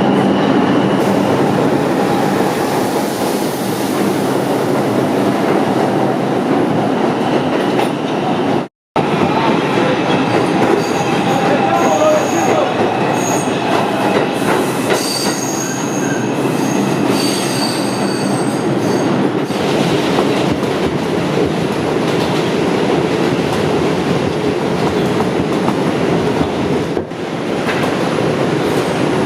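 New York City Subway train running on the rails, wheels clacking over the rail joints, with high-pitched wheel squeal about halfway through. The sound drops out for a moment at about nine seconds.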